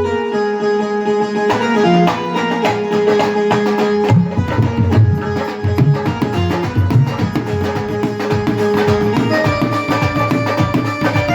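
Instrumental devotional music: hand drums playing a quick, dense rhythm under a held melody line. The drumming grows busier about a second and a half in.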